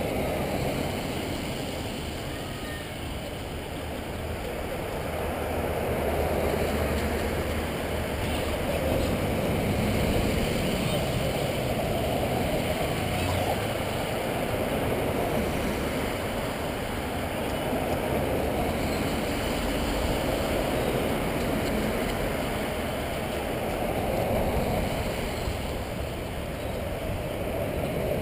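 A line of vehicles driving past: a steady rush of engine and tyre noise that swells and eases several times as they go by.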